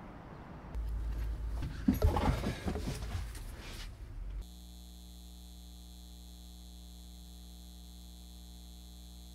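Steady electrical hum with many held tones, starting abruptly about four and a half seconds in. Before it comes a low rumble with a few knocks and rustles, loudest around two seconds in.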